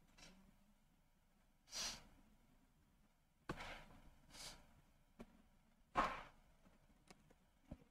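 A person breathing out audibly into a close microphone, four short breaths with the loudest about six seconds in, and a few soft clicks between them.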